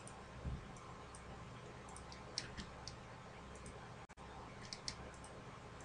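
Faint computer mouse button clicks, short and irregularly spaced, over a low steady hum.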